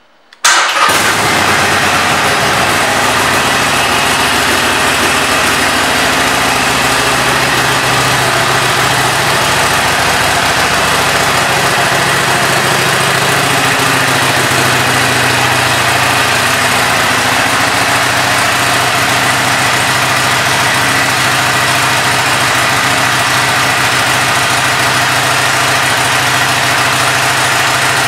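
2019 Harley-Davidson Iron 883's air-cooled 883 cc V-twin engine starting about half a second in, then idling steadily.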